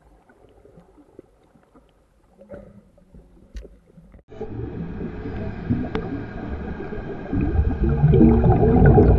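Underwater-style sound effect for an intro: a deep rumbling, gurgling sound starts abruptly about four seconds in and grows louder, after a few seconds of faint quiet with small clicks.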